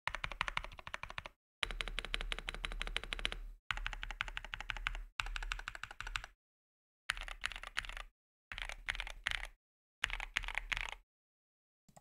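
Typing on an Epomaker Mini Panda 64 keyboard fitted with lubed MMD Holy Panda tactile switches, thick PBT ASA-profile keycaps, a tape mod and PE plus packaging foam. It sounds as rapid runs of keystrokes in several separate stretches, with brief silences between them.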